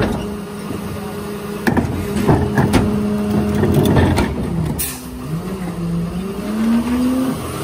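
Heil rear-loader garbage truck dumping a trash cart with its hydraulic cart tipper: a steady hydraulic hum under loud clattering as the cart and trash bang into the hopper, ending about four seconds in. A short sharp burst of air follows, then the truck's diesel engine rises in pitch as it pulls away.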